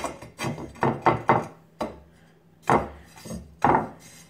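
Wood-look plank tile rocking on an uneven subfloor as a hand presses on it, clacking down in a string of sharp, irregular knocks. The rocking shows a high spot or bend in the floor that needs building up with compound.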